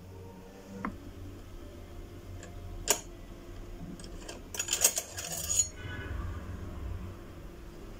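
A few sharp clinks and knocks of small hard objects: a single knock about three seconds in, then a quick cluster of ringing clinks a little later.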